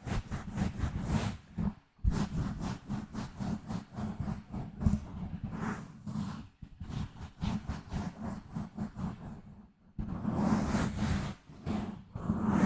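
Gentle scratching directly on a microphone, close and loud in the recording: quick rubbing strokes several times a second, in runs broken by short pauses, with a denser scratching stretch near the end.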